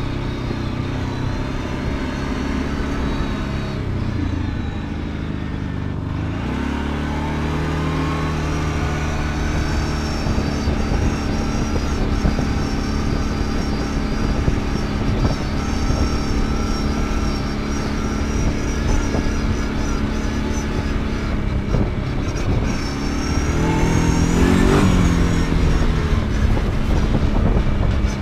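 Kawasaki Brute Force 750 ATV's V-twin engine running under way. The revs drop about four seconds in and climb back a couple of seconds later, then hold steady. Near the end there is a brief rise and fall in revs.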